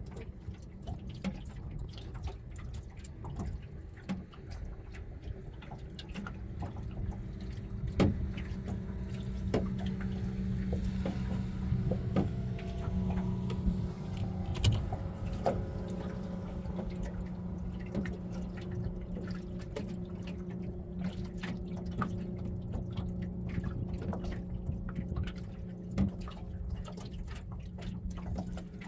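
Water lapping and ticking against the hull of a small boat at anchor, over the steady drone of a passing motorboat's engine that swells from about a quarter of the way in and stays loud through the middle.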